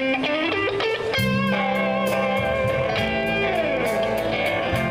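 Live band playing rock music: electric guitars over bass and drums, with steady cymbal strokes and a guitar line sliding down in pitch about three and a half seconds in.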